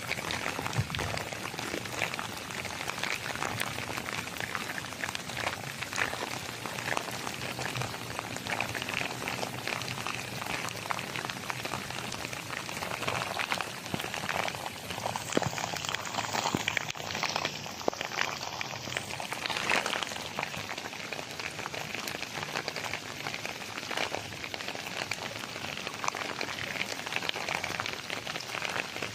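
Steady, dense patter of water drops, like light rain falling on leaves and shallow water, full of fine crackling ticks.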